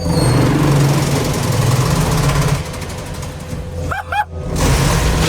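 Heavy machine's diesel engine working under load while it tears up a car's body, a loud rumble with crunching metal. It eases off about two and a half seconds in, with a short high-pitched sound about four seconds in.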